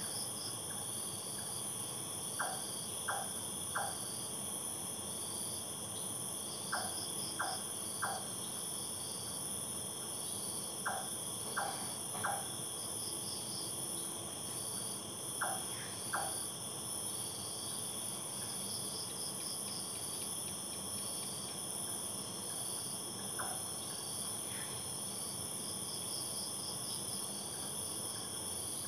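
Night insect chorus: crickets and other insects trilling steadily in several high tones, with a pulsing trill on top. Short chirps in groups of two or three break in every few seconds.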